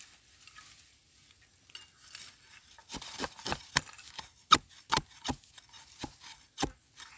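Metal digging blade chopping into dry, root-filled earth to dig out wild yam tubers: about ten sharp, irregular strikes starting about three seconds in, after a quieter start.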